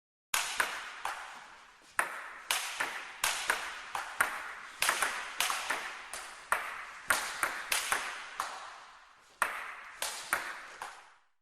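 Table tennis rally: the ball clicks sharply off the paddles and table at an uneven rally rhythm, often in quick pairs, each hit echoing briefly.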